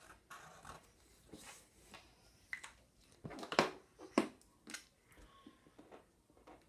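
Sharpie markers being handled on a tabletop: short strokes of a marker tip on paper, then a few sharp clicks and taps about halfway through as one marker is put down and the cap is pulled off another.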